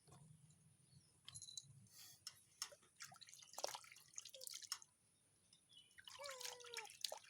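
Faint water dripping and splashing as a wet cat is washed, with the cat giving a short meow near the end.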